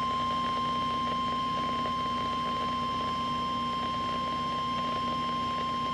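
Emergency alert warning tone of a National Weather Service broadcast: one steady, unbroken high-pitched tone with a faint hum beneath. It is the alarm that announces a severe weather warning.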